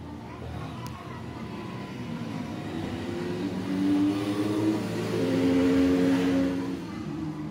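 A motor vehicle engine running and revving, growing louder and stepping up in pitch from about three seconds in, then easing off near the end.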